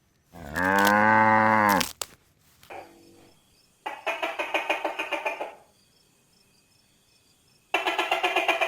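A cow moos once, a low call of about a second and a half. Later, twice, another animal gives a higher call made of rapid trembling pulses, about ten a second.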